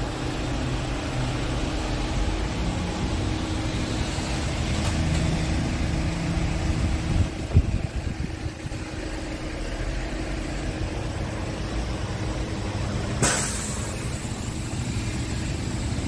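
Scania S tractor unit's diesel engine idling steadily, with a low rumble and a steady hum. There is a dull knock about halfway through and a brief sharp hiss near the end.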